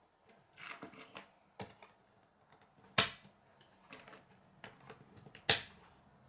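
K'nex plastic rods and connectors clicking and snapping together as they are built up by hand: scattered small clicks, with two sharp loud snaps about three seconds in and again near the end.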